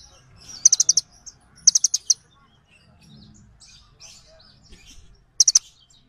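Sunbird calling: sharp, high chips in quick runs of four or five notes. Two runs come in the first two seconds and one near the end, with fainter twittering between.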